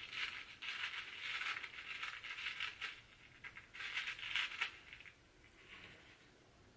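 Fingers picking through granola clusters in a thin plastic snack tray with a foil lid: crinkly rustling and small rattling clicks for about five seconds, then dying down.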